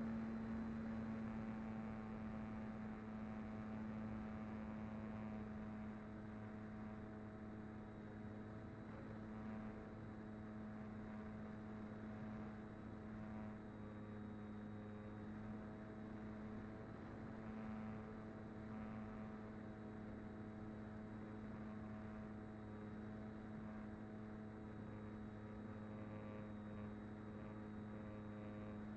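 Mini Talon FPV plane's electric motor and propeller running at steady throttle, heard through the onboard camera's microphone: a steady hum with a ladder of even overtones, easing slightly over the first few seconds.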